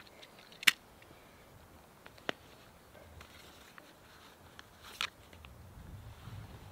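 A few sharp clicks and knocks of small hard gear being handled: the loudest about a second in, another near the middle, a softer rustling knock near the end. A low rumble builds over the last second or so.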